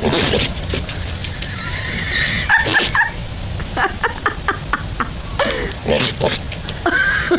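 Goats bleating, several calls one after another, with a run of short knocks or clicks in between.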